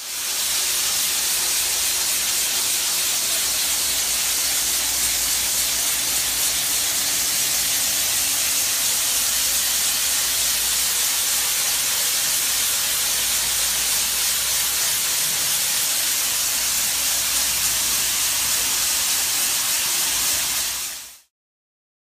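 Abrasive blasting from an HD SpinBlast pipe-blasting tool: a steady, loud hiss of compressed air and abrasive, which starts abruptly and stops near the end.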